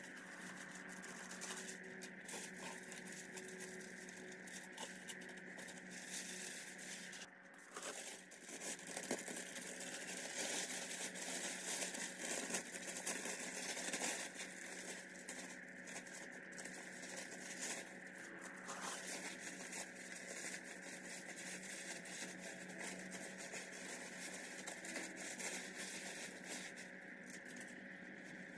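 Plastic masking sheeting and masking paper being peeled off a freshly painted car body and crumpled up, with masking tape tearing away: a continuous crinkling and rustling, loudest about ten to fourteen seconds in.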